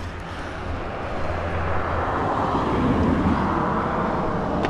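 A vehicle passing by: a rushing noise that builds to a peak a little past the middle and then fades.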